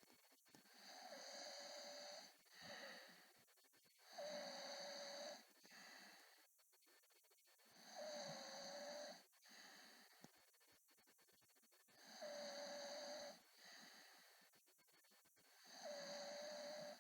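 A man snoring faintly, with five squeaky snores about four seconds apart and softer breathing sounds between them.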